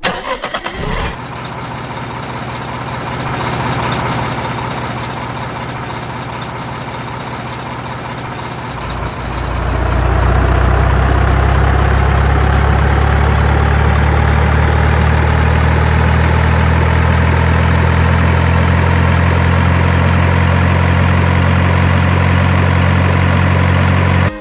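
A truck engine running steadily, a low, even drone that grows much louder about nine seconds in, with a faint whine that rises slowly over it.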